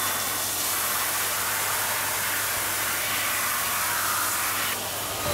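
Handheld shower head running, a steady spray of water with no breaks.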